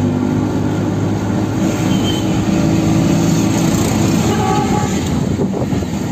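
Auto-rickshaw engine running as the rickshaw drives along, heard loud from inside the open cab as a steady low drone. About four and a half seconds in, the even engine note gives way to a rougher rumble.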